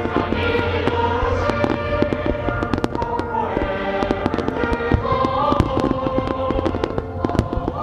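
Aerial fireworks bursting in a rapid string of pops and bangs, many a second, over music with long held notes.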